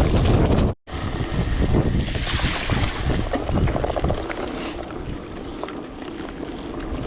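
Wind buffeting the microphone on a moving bike, a steady rumble with gusting hiss, cut off briefly by a sudden dropout just under a second in before it resumes at a lower level.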